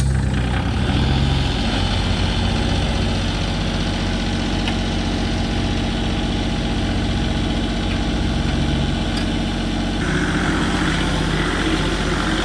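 Vehicle engine idling steadily, with a slight rise in level about ten seconds in.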